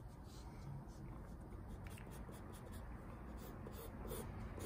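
Soft 6B graphite pencil scratching on drawing paper in a run of quick, repeated shading strokes.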